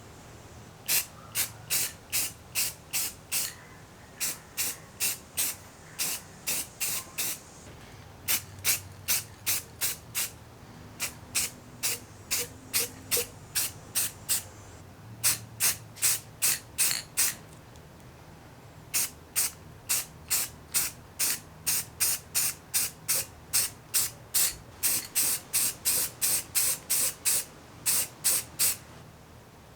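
Aerosol spray can sprayed in many short hissing bursts, about three a second, in runs of a few seconds broken by brief pauses.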